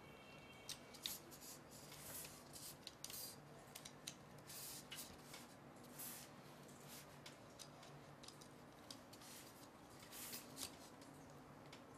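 Faint small clicks and scrapes of a hex key turning small screws in the clamps of a carbon-fibre gimbal frame, tightening them down onto the tube.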